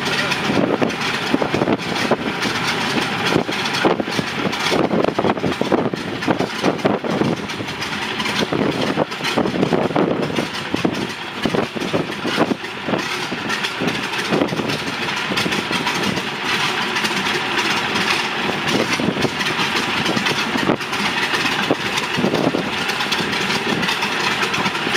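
The three radial engines of a 1929 Ford Trimotor running at low power. Wind buffeting the microphone partly masks them, with gusty swells in loudness.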